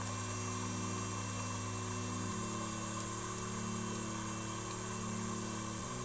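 Slow ambient background music of long held low notes, shifting to a new chord about two seconds in and again near the end, over a steady hiss.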